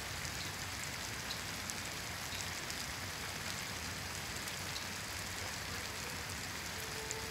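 Steady spring rain falling on wet maple leaves: an even hiss with scattered single drops ticking through it.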